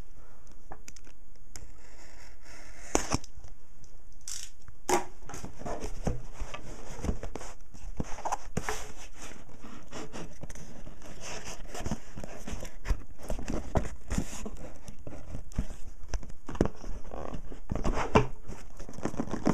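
Seal stickers being picked and peeled off a Nexus 7 tablet's retail box: irregular scratching, clicks, tearing and crinkling.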